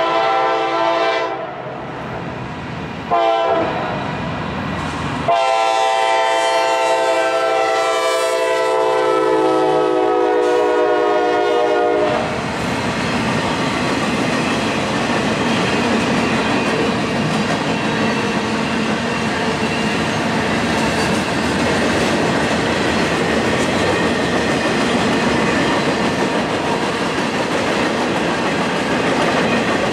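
Freight train locomotive's air horn sounding a series of blasts, a short one about three seconds in and a long one of about seven seconds that ends around twelve seconds in. Then the steady clatter and rumble of Norfolk Southern freight cars rolling past on the track.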